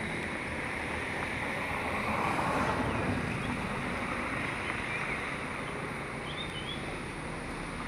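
Steady rushing background noise, a little louder around two to three seconds in, with a few faint high chirps about six and a half seconds in.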